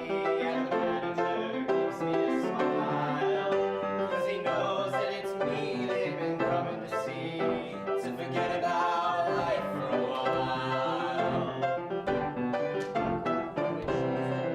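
Music: a group of voices singing sustained notes in close harmony, choir-like.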